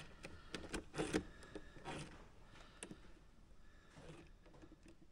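Light clicks and knocks of hands working the axle and drivetrain parts of a scale RC crawler. Most come in the first two seconds, and they thin out to a few faint ones after that.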